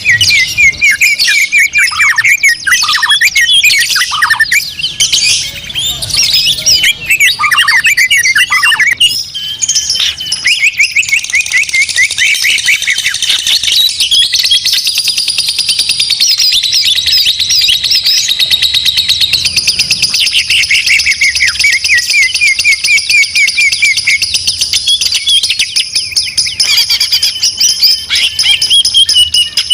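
Caged songbirds singing loudly in rapid, continuous trills, whistles and chattering phrases, the song turning into a steadier fast chatter about a third of the way in.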